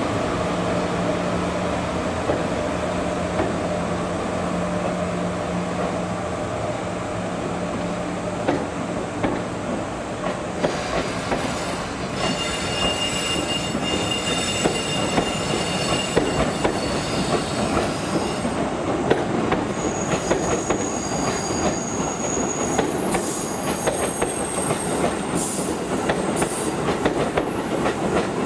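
Train of new Sotetsu 20000 series cars, hauled by an EF66 electric locomotive, rolling past at low speed, its wheels clicking over the rail joints. A low steady hum is heard for the first several seconds. From about twelve seconds in, high-pitched wheel squeal rings over the clicking.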